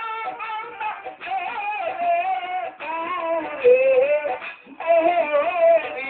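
A Bengali jatra dance song: a singer's voice carrying the melody over instrumental backing, sung in short phrases with brief breaks between them.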